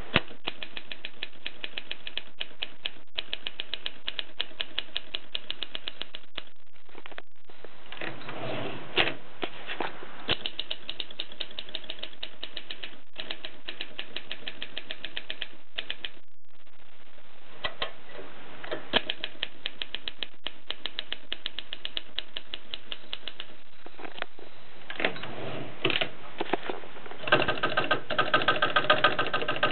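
Voss manual typewriter being typed on: rapid, evenly spaced key strikes in runs of several seconds, with short pauses between runs. The strikes grow louder near the end.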